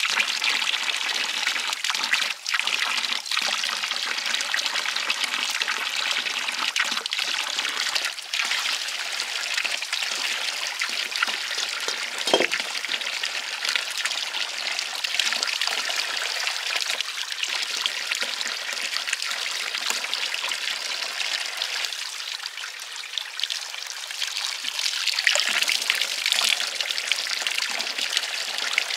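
Running water trickling steadily, with a few brief knocks.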